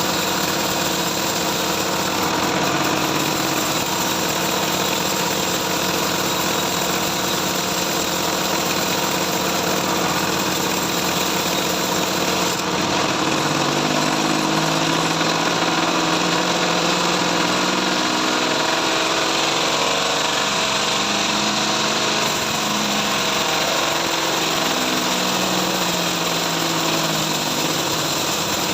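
Band sawmill running steadily, a loud, even machine hum. A wavering lower hum comes and goes between about 13 and 22 seconds in.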